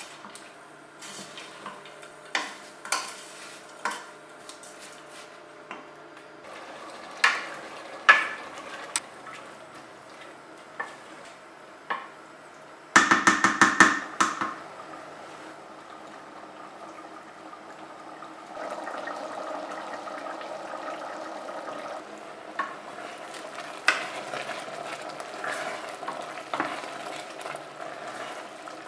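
Kitchen utensils stirring and clinking against cookware, with scattered sharp knocks. About halfway through there is a quick run of taps, and a little later a steady rushing noise lasts a few seconds.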